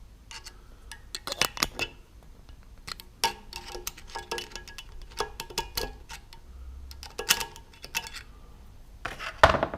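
A screwdriver poking and tapping at the valve collets and spring retainers on a Jaguar cylinder head to split them free: a run of small metallic clicks and clinks, with one louder metal knock near the end.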